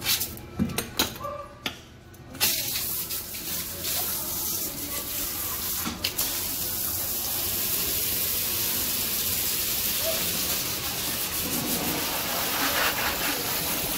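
A few knocks and clicks, then about two and a half seconds in a handheld pet-wash sprayer starts and runs steadily, its water spraying onto a dog's coat and the tub floor.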